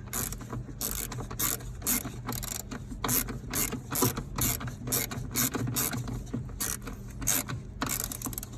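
Ratchet wrench clicking in quick repeated strokes, about two to three clicks a second, as the last mounting bolt of an accelerator pedal is run down and snugged.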